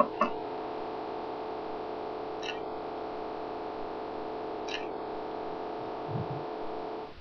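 Steady electrical hum made of several fixed tones, with a couple of sharp clicks at the start and a few faint ticks; it cuts off suddenly at the end.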